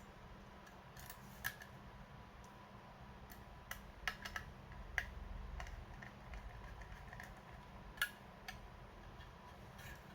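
Irregular small clicks and taps of plastic and metal parts and a small tool being handled on a laptop, with two sharper clicks, one about a second and a half in and one about eight seconds in.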